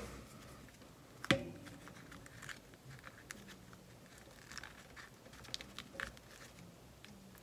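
Small clicks, taps and handling noises of plastic clamp clips being moved and set on a glued paper-and-cardboard craft piece, with one sharp click about a second in.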